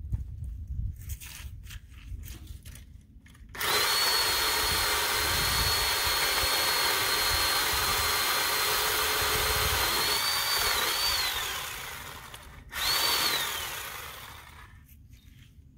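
Electric pole saw running as it trims crepe myrtle limbs: a steady high whine starts about three and a half seconds in and runs for about eight seconds, its pitch wavering near the end before it winds down. A second short burst follows about a second later and winds down the same way.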